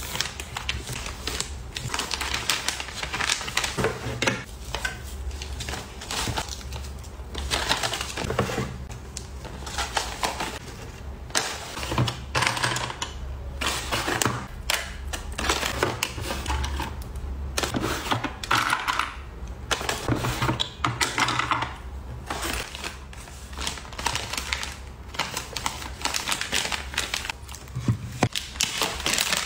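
Hands handling packing materials: plastic sleeves and paper rustling and crinkling, with many quick light taps and clicks as cards and small items are set down and sorted.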